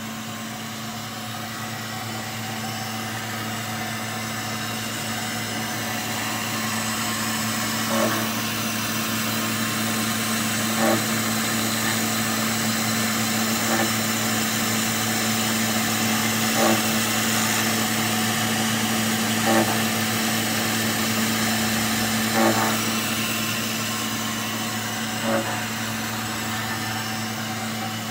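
Hey No. 10 gear tooth rounding and chamfering machine running while working a gear: a steady motor hum and hiss, with a short knock repeating about every three seconds.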